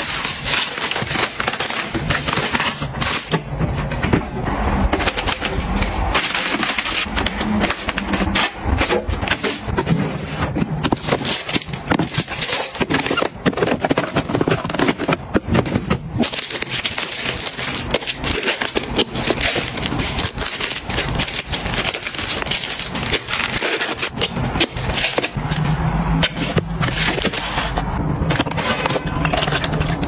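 Close-up handling sounds of household goods being restocked: crinkling plastic packaging with a steady run of quick clicks, taps and knocks as items are set down and shifted.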